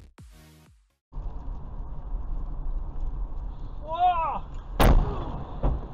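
The electronic background music ends, and about a second in a car's dashcam picks up steady road and engine rumble inside the cabin while driving through a tunnel. A short voice exclamation comes about four seconds in, then a sharp bang, the loudest sound, and a lighter knock near the end.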